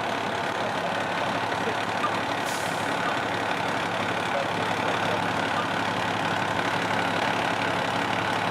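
Fire truck's diesel engine idling steadily.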